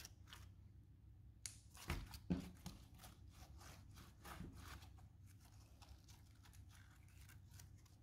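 Clay-and-water slime squeezed and pressed by hand, giving off soft sticky clicks and small pops, loudest in a cluster about two seconds in.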